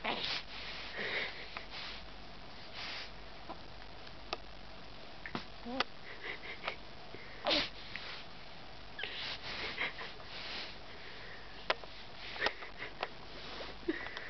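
Newborn baby's snuffly nasal breathing: short sniffs and breathy puffs at irregular intervals, with a few small clicks in between.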